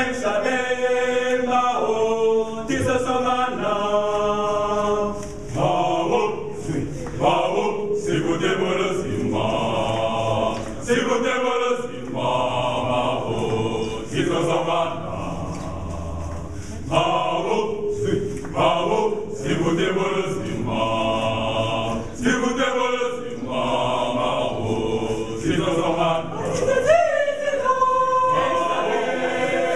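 Mixed choir of men and women singing a cappella, several voices together without a break.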